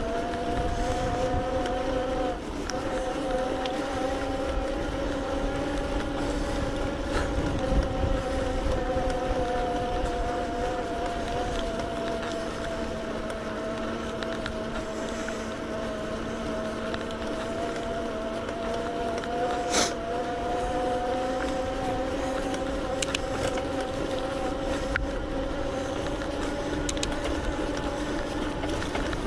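Electric bike's motor whining steadily as it pulls up a hill, the pitch drifting slowly up and down with the effort, over a low rumble of wind on the microphone. A single sharp click about twenty seconds in.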